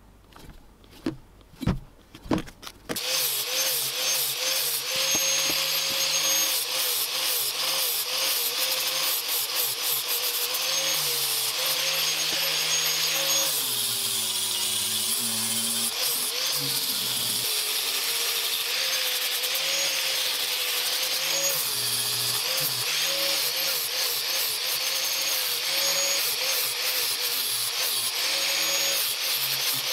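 A few light clicks and taps, then about three seconds in an angle grinder starts and runs steadily, grinding the steel of an axe head. The motor's pitch wavers as it works, sagging for a couple of seconds near the middle.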